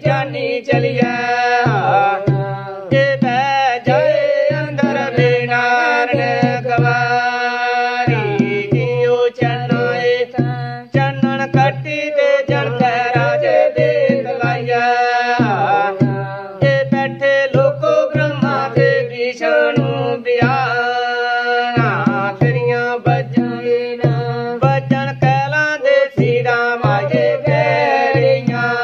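A Dogri folk song sung by a man and a woman, accompanied by a small two-headed dhol drum struck with a thin stick and the hand in a steady beat.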